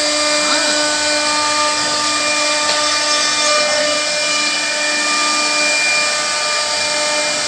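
CNC wood router's spindle running while its bit carves a wooden door panel: a steady whine made of several constant pitches over a hiss.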